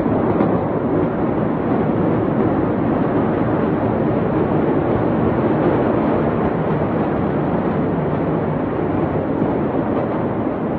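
Steady, even rushing noise of wind on a phone's microphone outdoors, with no distinct bangs or voices.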